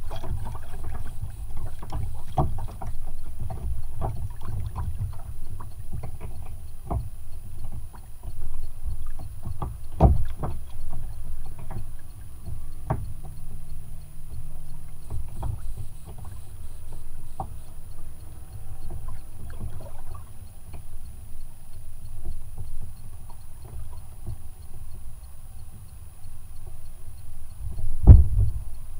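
Water lapping and slapping against a kayak's hull, with a steady low rumble of wind and water and irregular sharp knocks, the loudest about ten seconds in and another near the end.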